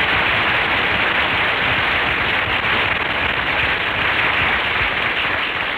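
Studio audience applauding steadily, on an old radio recording with the highs cut off.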